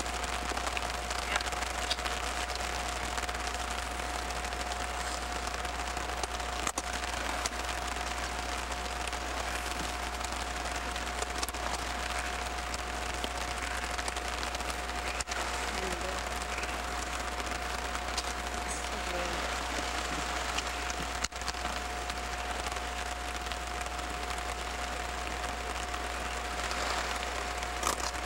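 Steady rain falling, an even hiss with no letup, with a thin steady tone and a low hum running underneath.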